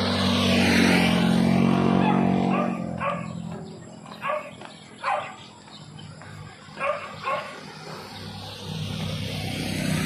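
A motor scooter passes close by, its engine swelling and fading over the first couple of seconds, then a dog barks about six times in short, separate barks. Another vehicle approaches near the end.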